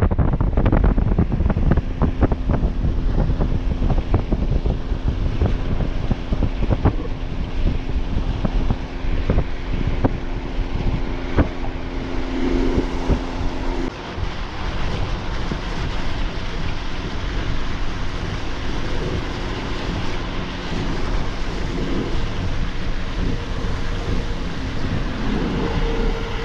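Wind buffeting the microphone, a loud rushing noise with frequent gusty knocks, mostly in the first half. A steady low hum joins about two seconds in and cuts off around fourteen seconds.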